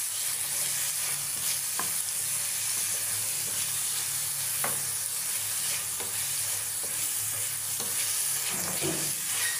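Chopped onions, green chillies and ginger-garlic paste sizzling in hot ghee in a ceramic-coated frying pan while a wooden spatula stirs them, with a few scrapes and knocks of the spatula against the pan.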